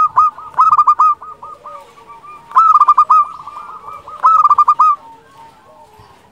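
Zebra dove (perkutut) singing in its clear, flute-like voice: four loud phrases of quick, clipped cooing notes with softer notes between them. It fades to a few faint notes near the end.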